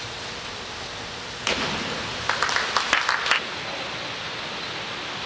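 A diver's entry splash into the pool, a sudden rush of noise that lasts a couple of seconds, with a few hands clapping quickly near its end. Steady pool-hall hiss underneath.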